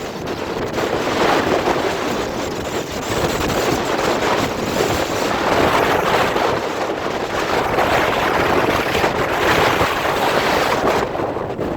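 Strong mountain wind buffeting the microphone: a loud rushing noise that swells and eases in gusts every second or two.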